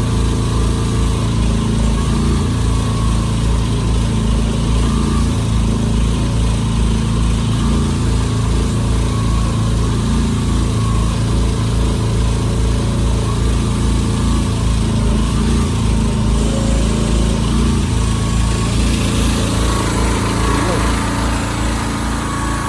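Mini excavator's engine running steadily while the machine is being worked, its note stepping slightly up and down, easing a little near the end.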